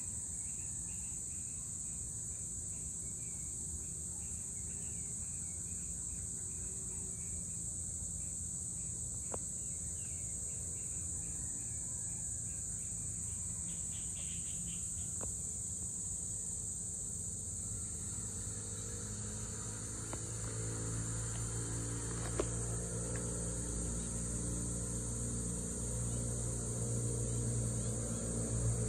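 Steady high-pitched chorus of insects such as crickets. From about two-thirds of the way in, a low engine drone rises underneath it and grows louder toward the end.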